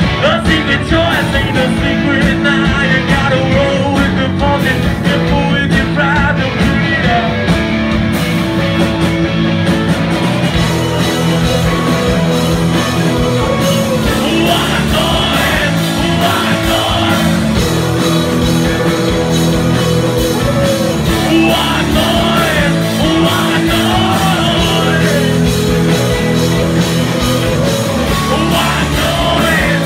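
Live rock band playing loud and without a break, with electric guitar and bass under a lead singer singing into a microphone, heard from within the audience.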